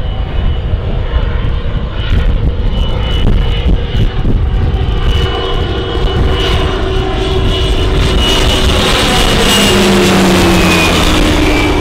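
Pilatus PC-7 turboprop trainer, its Pratt & Whitney PT6A engine and propeller droning with a steady whine and growing louder as it approaches. It passes low overhead about ten seconds in, and the whine drops in pitch as it goes by.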